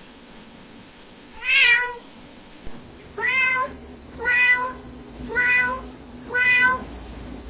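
Domestic cat meowing softly: five short meows, one alone and then four evenly spaced about a second apart.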